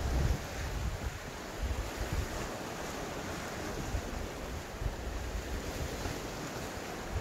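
Strong wind buffeting the microphone in irregular gusts, over a steady rush of sea waves breaking on the rocks.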